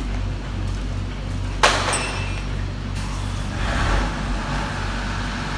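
Steady low drone of an idling engine, with one sharp metallic clank about one and a half seconds in.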